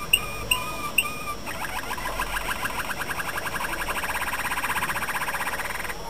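Male Malinois (Waterslager) canary singing: a few separate whistled notes, then about a second and a half in a fast, even trill that grows louder and stops near the end.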